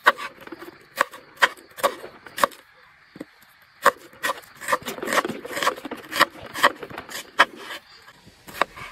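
Kitchen knife knocking and scraping on a wooden chopping board as vegetables are cut, in irregular sharp strokes that come thicker about halfway through.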